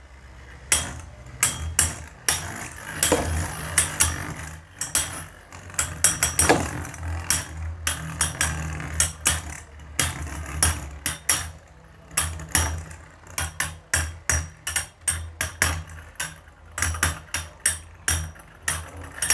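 Two Beyblade spinning tops, Phantom Orion and the 4D Kreis Cygnus, battling in a plastic stadium: many sharp, irregular clicks as they strike each other, coming thicker in the second half, over a steady low hum of the spinning tops.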